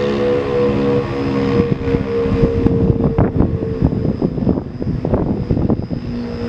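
ACA P-15 outdoor warning siren sounding its steady alert tone, level in pitch, which fades out early on and comes back strongly near the end. An irregular, gusty rumble covers it in between.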